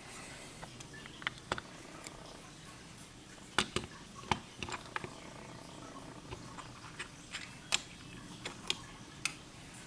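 Scattered light clicks and taps from the parts of a disassembled pin-tumbler lock being handled, irregular, with a few sharper clicks in the middle.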